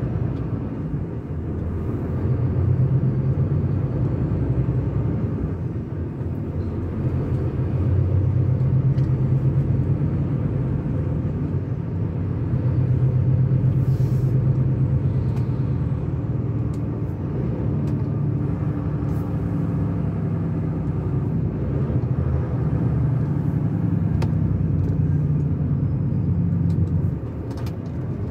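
Engine and road noise of a moving vehicle heard from inside its cab: a steady low hum that swells and eases several times.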